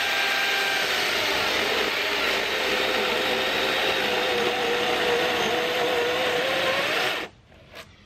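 DeWalt cordless brushless chainsaw cutting through a 6x6 wooden post: a steady motor whine and chain noise, its pitch sagging slightly under load and rising again just before it stops suddenly about seven seconds in.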